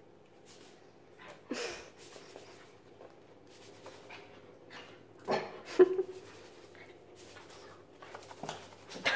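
A small long-haired dog giving several short, sharp yips, spread out and separated by quiet gaps, the loudest about six seconds in.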